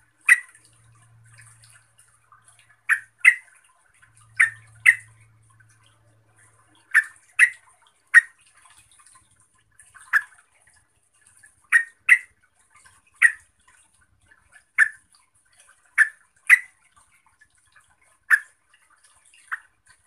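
Yellow-vented bulbul giving short, sharp call notes, about seventeen of them, often in quick pairs, at a steady pace of roughly one every second.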